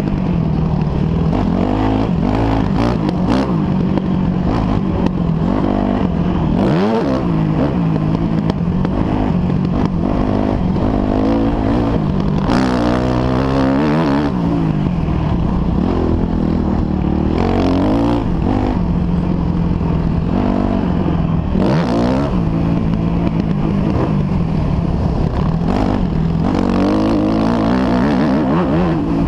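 Motocross bike engine heard from the rider's helmet, revving up and down again and again as the rider works the throttle and gears around the track.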